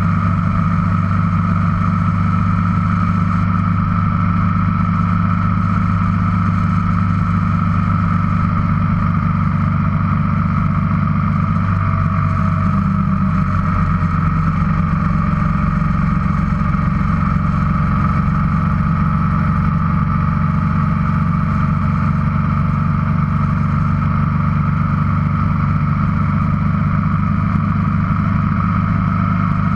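Motorcycle engine running steadily at cruising speed on the open road. Its note changes slightly about twelve seconds in.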